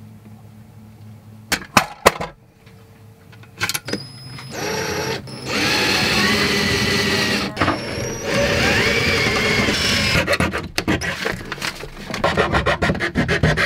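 Electric drill boring holes through a wooden bulkhead panel, running in two stretches of a few seconds, its whine shifting in pitch as the bit loads up in the wood. A few clicks come before it, and a rapid choppy run of strokes near the end.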